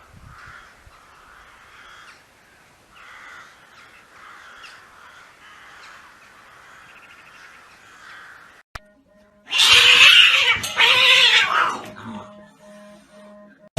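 A cat's loud, harsh yowl lasting about two seconds, coming after a long stretch of faint background noise and a single click.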